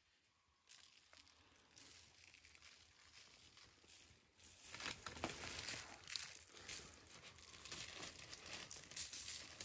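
Parchment paper crinkling and rustling under hands rubbing salt and spices into a large scored carp, with small irregular crackles. It gets louder about halfway through.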